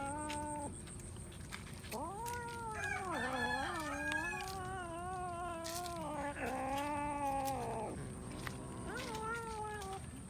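Cats yowling over a shared bowl of raw fish in long, wavering, drawn-out calls, four in a row with the longest lasting about four seconds. This kind of growling yowl is typical of cats guarding food while feeding side by side.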